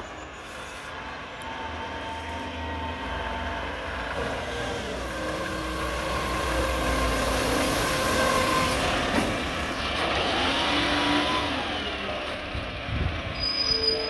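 Mack front-loader garbage truck with a McNeilus body driving up and past. Its engine noise grows louder to a peak about eight seconds in, then eases as it pulls away.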